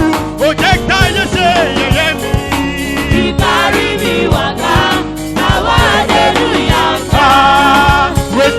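Church choir singing a gospel song over band accompaniment, with drums keeping a steady beat.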